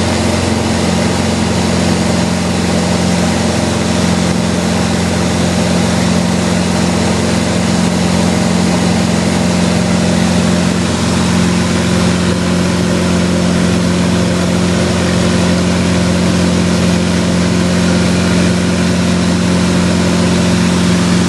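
Single-engine light aircraft's engine and propeller heard from inside the cockpit as a steady, unchanging drone, with a low hum under a wide rush of noise.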